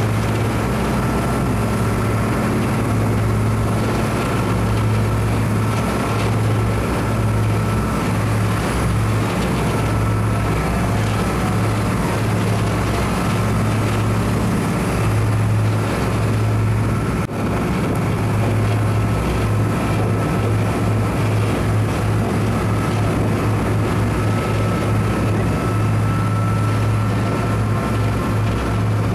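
Steady low drone of the Japan Coast Guard patrol vessel Mizuki's engines under way, with a thin constant whine above it and a wash of wind and water noise.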